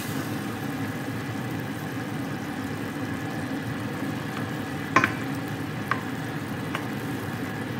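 A wooden spatula stirring a chunky chicken stew in a stainless steel pot over a steady simmering hiss, with three short knocks of the spatula against the pot about five to seven seconds in, the first the loudest.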